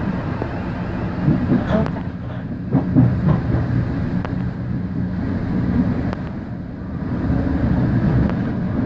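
Passenger train running along the track: a steady low rumble with a few faint clicks from the wheels.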